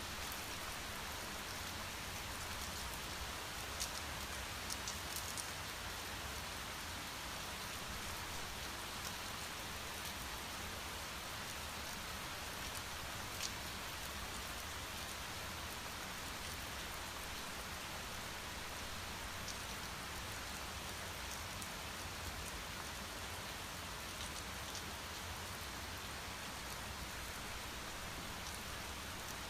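Steady rain falling, an even hiss of many drops on a surface, with a few sharper single drop ticks standing out about four to five seconds in and again near fourteen seconds.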